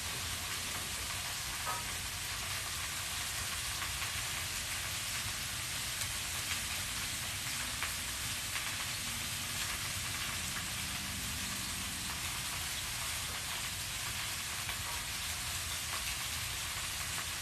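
Bacon and slider burgers frying on a portable grill: a steady sizzle with a few faint crackles.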